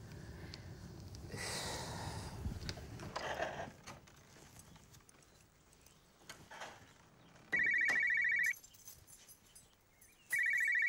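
Mobile phone ringtone ringing twice, each ring about a second long and nearly three seconds apart.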